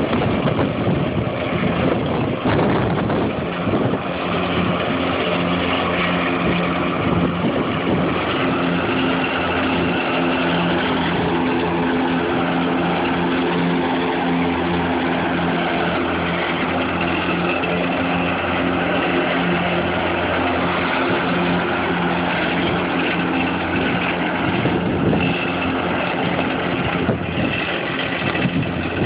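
A John Deere zero-turn riding mower, converted to all-electric drive, running across a lawn. It makes a steady hum with several even tones over a hiss of noise. The hum settles in a few seconds in and drops away shortly before the end.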